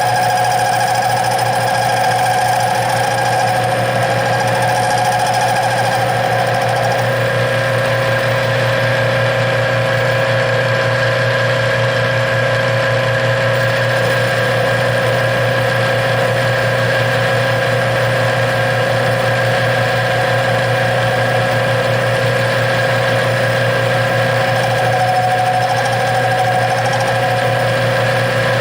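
Metal lathe running steadily, turning a chunk of aluminum. A higher whine sits over the hum for the first seven seconds or so and comes back briefly near the end.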